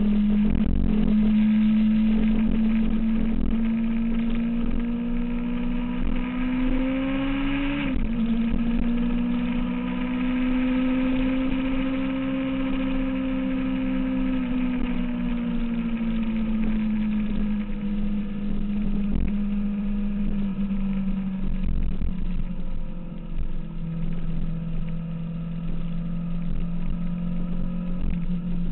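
A 2006 Kawasaki ZX-6R's inline-four engine pulling through the gears. Its note climbs and then drops sharply at an upshift about eight seconds in, holds steady at cruising speed, and then slowly falls as the bike eases off.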